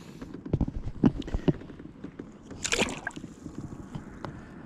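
A bass released from a kayak splashing back into the lake about two and a half seconds in, after a few sharp knocks and taps as it is handled over the side.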